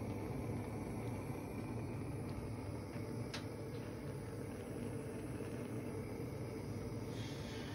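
Steady rushing hiss of a gas stove burner heating coffee in a copper cezve, with one light click about three seconds in.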